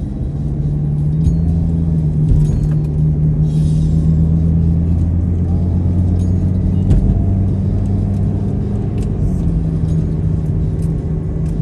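A car driving: a steady low hum of engine and road noise.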